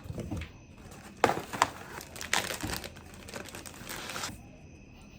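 Packaging crinkling and rustling as items are handled, with a few sharp clicks and crackles; it stops about four seconds in.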